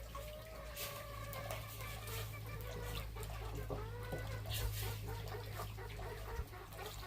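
Chickens clucking, a few drawn-out wavering calls over a steady low hum.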